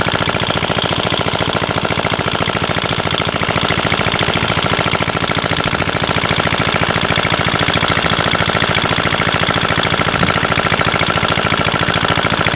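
Engine running steadily, a fast, even chugging of firing pulses that does not let up.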